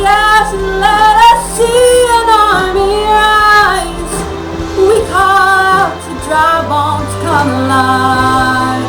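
A woman singing a contemporary worship song over instrumental accompaniment with a sustained low bass. She sings long held phrases that rise and fall, with short breaks between lines.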